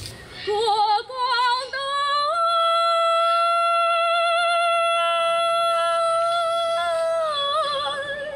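A woman singing a Hakka mountain song unaccompanied, in the high-pitched Longnan 'guo shan liu' style. It opens with a few short, quavering ornamented notes, then she holds one long high note for about five seconds, and near the end it turns into a wavering lower phrase.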